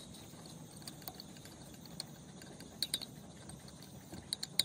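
Light metallic clicks and ticks of a hand tool working a nut inside an old air compressor's crankcase: a pair just before three seconds in and a quick cluster near the end, over a faint steady background.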